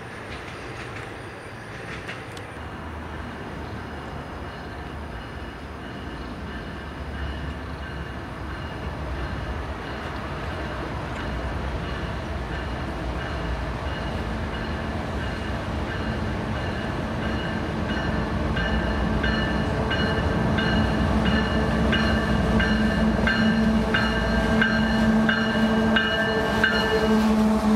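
CSX freight train approaching and growing steadily louder, with a steady low drone. From about two-thirds of the way in, a rapid run of clicks of its wheels over the track as it takes the crossover.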